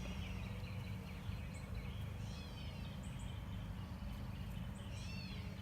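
Steady low hum of honeybees from an opened hive crowded with bees. A bird chirps in sweeping arcs twice, about two seconds in and near the end.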